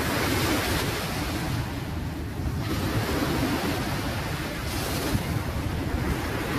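Ocean surf washing up the beach in a steady rush, swelling near the start and again about five seconds in, with wind buffeting the microphone as a low rumble.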